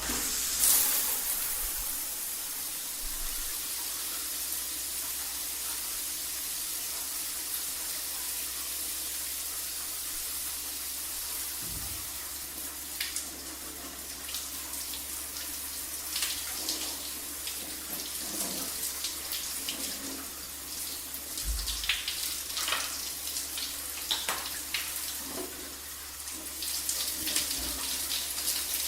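Shower running: a steady rush of falling water with irregular splashes over it, starting abruptly at the outset.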